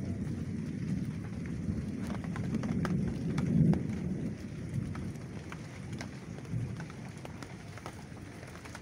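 Rain falling on broad banana leaves, with scattered sharp taps of drops close by. Underneath runs a low rumble that swells about three and a half seconds in and fades toward the end.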